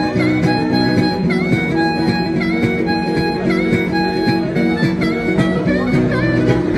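Instrumental break in a rock-and-roll song: a harmonica solo repeating a short bending phrase about once a second over steady guitar and band backing.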